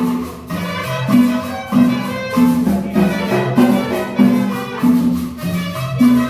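Salsa music with a steady beat, a repeating bass line and brass.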